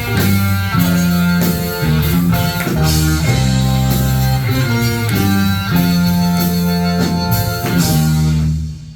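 Rock music with electric guitar, bass and drum kit playing held chords over a steady beat, fading out near the end.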